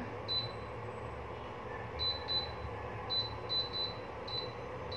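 BLAKK induction cooker's touch control panel beeping at each key press: about seven short, high beeps in irregular succession. Under them runs the steady hum of the running cooker, which is plainly noisy.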